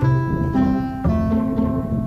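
Instrumental background music, a melody with notes changing about twice a second over a low bass line.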